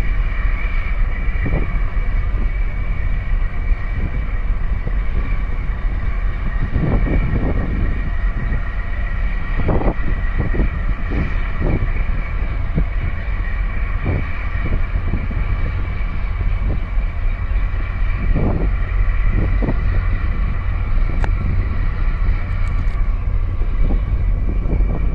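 Steady low rumble and drone of a large container ship passing close, with a steady high hum running through it. Wind gusts buffet the microphone in irregular thumps.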